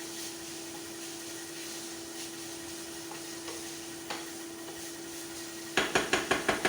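Tuna and vegetable filling sizzling steadily in a frying pan, with a constant hum underneath. Near the end, a quick run of sharp taps starts, about six a second.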